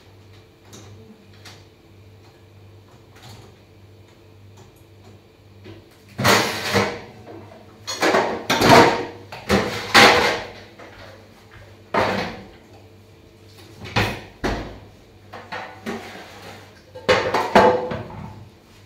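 Kitchen clatter: after a few quiet seconds, a series of loud knocks and rattles of things being handled and set down, the loudest a little past the middle.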